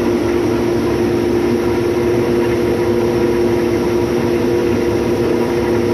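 6130 combine harvester running steadily while cutting wheat: an even engine and threshing drone with a few constant hum tones.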